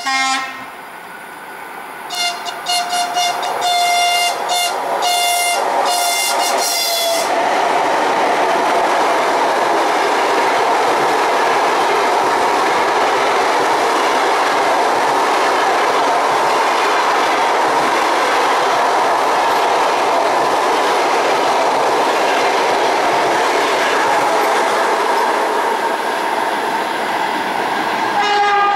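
ChS7 electric locomotive sounding its horn as a friendly greeting: a short blast, then a quick string of short toots lasting about five seconds. Then the long, steady rumble and clickety-clack of its passenger coaches passing close by, with another horn blast right at the end.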